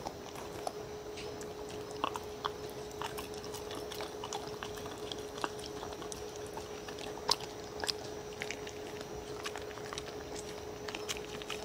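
Dog eating soft noodle food from a wooden bowl: scattered small wet clicks of chewing and licking. A steady faint hum runs underneath.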